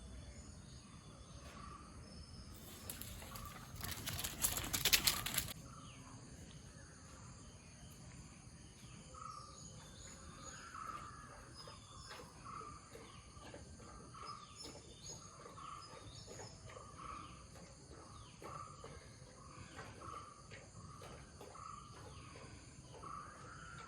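Birds calling, short chirps repeating roughly once a second from about nine seconds in, over a faint steady high insect hum. About three seconds in, a loud rush of noise lasts some three seconds.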